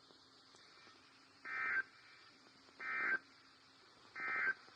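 Three short bursts of Emergency Alert System (SAME) digital data tones from a weather radio broadcast, each about a third of a second and a little over a second apart: the end-of-message code that closes the tornado watch alert.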